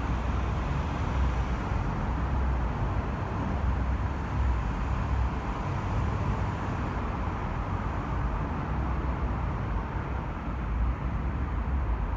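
Multi-lane expressway traffic: a continuous stream of cars passing, heard as a steady wash of tyre and engine noise with a deep rumble underneath.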